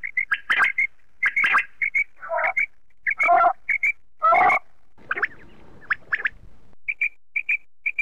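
Common quail calling: short, sharp notes repeated in quick groups, some as the three-note 'wet-my-lips' phrase, with a few longer, lower, rougher notes among them.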